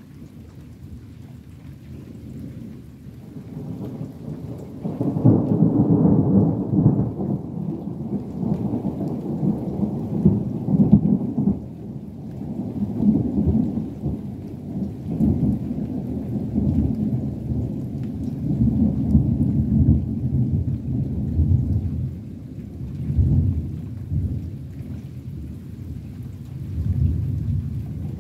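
A long roll of thunder: a low rumble that builds about four seconds in, then rolls on in repeated swells that rise and fade.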